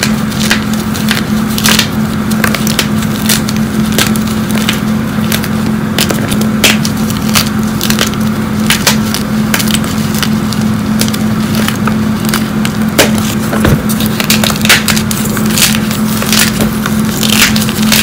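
Hands crushing and crumbling hard blocks of gym chalk, giving irregular crisp cracks and crunches as pieces snap and grind, close to the microphone. A steady low hum runs underneath.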